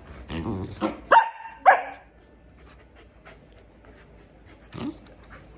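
Corgis play-fighting: a low grumbling, then two sharp, high-pitched barks a little over a second in, and one more short dog sound near the end.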